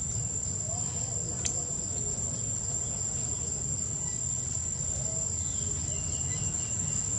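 Insects in the forest making a steady, high-pitched whine, over a low rumble.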